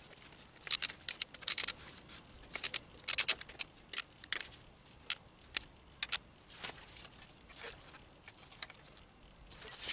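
Socket wrench clicking and clinking on the banjo bolt of a motorcycle clutch slave cylinder as the bolt is tightened: sharp metallic clicks in short, irregular clusters, dying out near the end.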